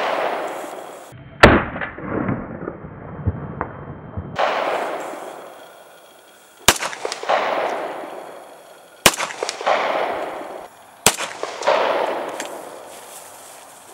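Shots from a 1911 pistol: four or five sharp reports a couple of seconds apart, each trailing off in a long echo. About a second in, one comes out deep and muffled with a low rumble.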